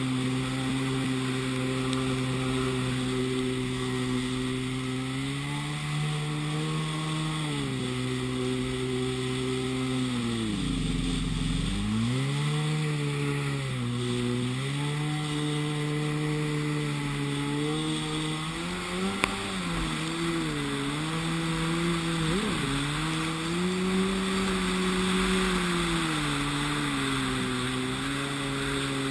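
Yamaha Waveblaster 701 jet ski's two-stroke twin engine running under way, its revs rising and falling as the throttle is worked, with a deep dip about ten seconds in as the throttle is let off. Water rushes and spray hisses under the engine note.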